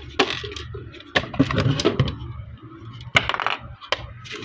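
Plastic toy wing pieces clicking and knocking together as they are handled, with a sharper click a little after three seconds.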